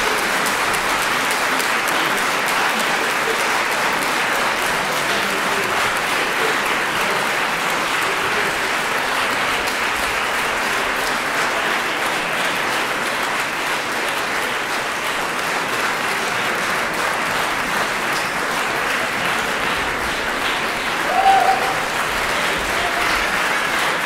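Audience applauding steadily, with one brief shout rising above the clapping near the end.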